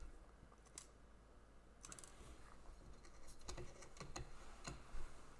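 Faint, scattered clicks and light metallic taps from hands adjusting a test indicator on a height gauge and handling a part on a surface plate. The sharpest click comes near the end.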